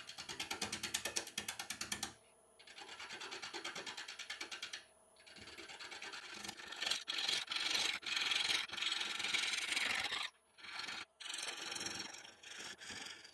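Bowl gouge taking interrupted cuts on a spinning laburnum blank on a wood lathe, roughing away material. It makes a rapid, rhythmic chatter of about ten hits a second as the tool meets the blank's wings. It comes in several passes with short pauses between them.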